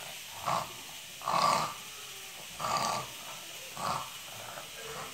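A girl with cerebral palsy making harsh, raspy vocal sounds: four short bursts about a second apart, the second the loudest.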